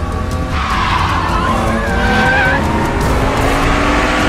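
Car drifting and sliding on a sandy road: tyres squealing in wavering tones from about half a second in, over an engine revving hard whose pitch climbs slowly.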